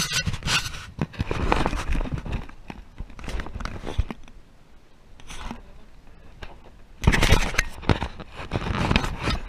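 Wind buffeting the boat-mounted action camera's microphone, with irregular rumbling and crackling gusts that are loudest about seven seconds in.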